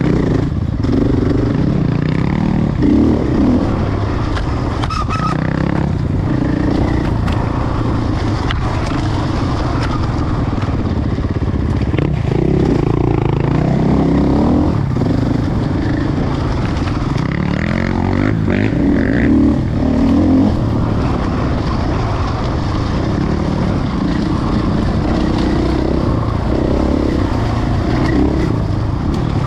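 A 450 dirt bike's engine heard from on the bike, run hard on and off the throttle so the revs keep rising and falling, with occasional sharp knocks.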